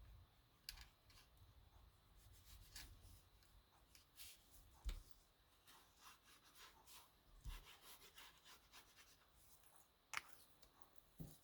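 Faint rubbing and scraping of a liquid glue bottle's tip drawn across cardstock, with small ticks and a few light taps on the paper about 5, 7.5 and 10 seconds in.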